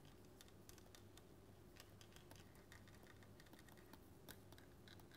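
Near silence with faint, irregular ticks and light scratches of a stylus on a pen tablet as a word is handwritten.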